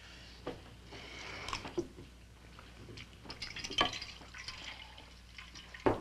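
Water splashing and dripping into a washbasin as a cloth is dipped and wrung out, in two spells, with a few small knocks and one sharp knock near the end.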